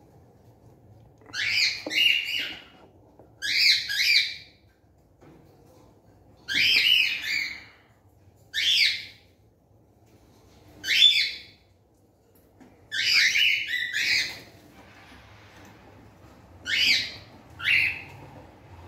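Cockatiels calling: short calls repeated every second or two at irregular intervals, some in quick pairs.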